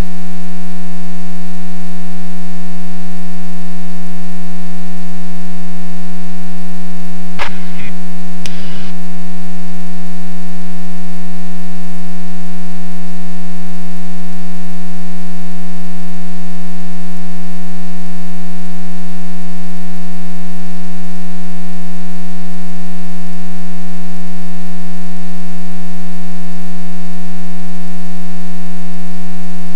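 A loud, steady buzz at one fixed pitch with many overtones, unchanging throughout, with a few short clicks about seven to nine seconds in.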